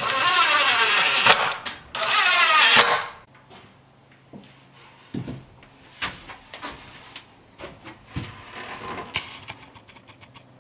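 Cordless impact driver running two bursts, driving short screws through a metal table-pole base into a plywood tabletop, the first about two seconds long and the second about a second. After that come a few light knocks and clicks as the wooden tabletop is handled and set in place.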